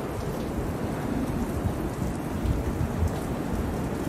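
Steady heavy rain in a thunderstorm with low rumbling that swells about two and a half seconds in.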